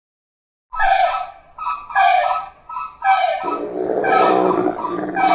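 Elephants trumpeting: a series of short, high, brassy calls after a brief silence, growing into several overlapping calls about halfway through.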